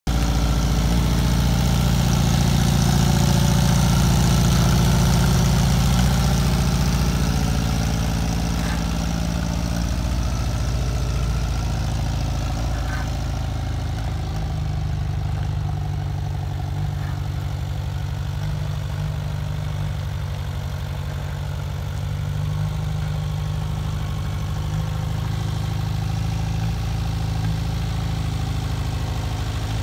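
Satoh Elk compact tractor's engine running steadily as the tractor is driven slowly around a gravel yard. It is a little louder for the first seven seconds or so, then settles slightly quieter.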